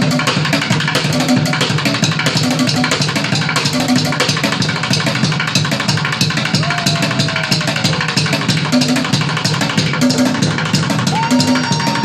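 Live street drumming: a fast, dense beat of many quick strikes, with a short low note repeating in a steady pattern underneath.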